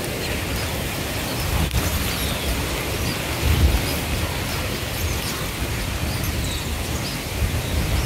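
Wind rumbling on the microphone over a steady hiss, with faint, short, high bird chirps scattered throughout.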